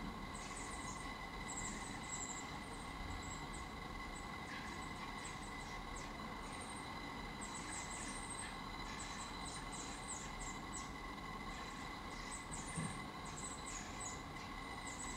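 Blackbird nestlings giving faint, high, thin peeping calls: short notes that drop in pitch, scattered irregularly and coming thicker in the second half, over a steady faint whine.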